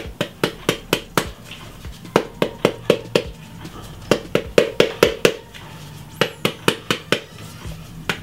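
A heavy kitchen tool beating the skin of a halved pomegranate held cut side down over a bowl, knocking the seeds out. Runs of about five sharp knocks, about four a second, with short pauses between runs.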